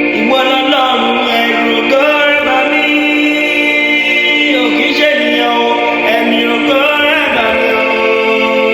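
Music: singing over sustained organ-like keyboard chords.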